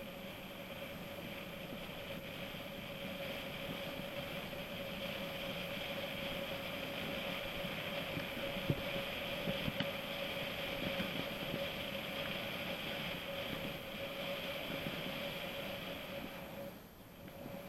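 Mountain bike rolling along at speed: a steady hum and high buzz from the tyres and drivetrain that builds up gradually and drops off briefly near the end.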